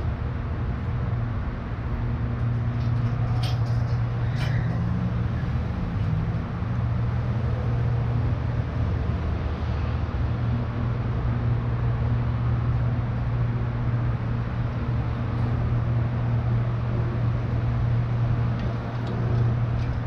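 Vintage electric streetcar rolling slowly along its track, with a steady low hum throughout and a couple of sharp clicks about three and a half and four and a half seconds in.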